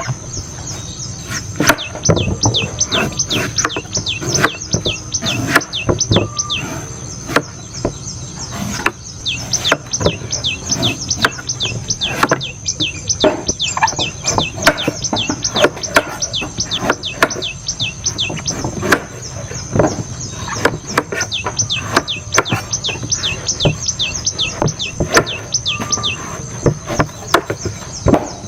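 A knife chopping into coconuts: quick, irregular strikes, several a second. Behind them are many short falling chirps and a steady high-pitched drone.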